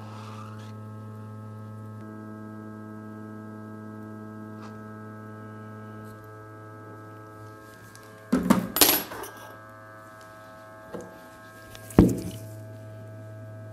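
Hot air SMD rework station running with a steady low electric hum and overtones, its air set to minimum pressure; part of the hum drops away about six seconds in. A burst of clattering handling noise comes about eight seconds in, and a single sharp knock near the end.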